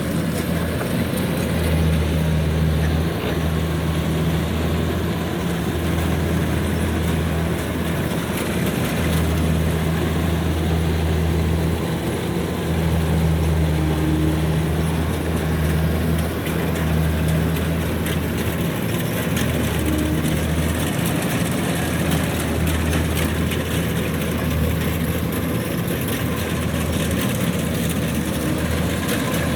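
Kubota DC-93 combine harvester's diesel engine running steadily under load while cutting and threshing lodged rice in soft mud. Its low hum swells and eases every few seconds over a constant machinery rush.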